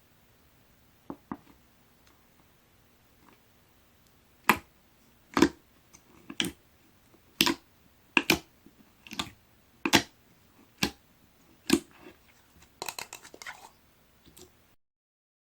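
Clear jelly slime being pressed and squeezed by hand, giving sharp pops and clicks about once a second, then a burst of smaller quick crackles before the sound cuts off to silence.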